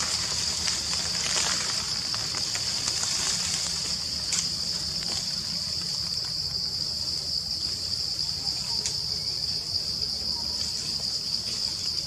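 Steady, unbroken high-pitched insect drone from a forest insect chorus, with a few brief sharp clicks or snaps over it.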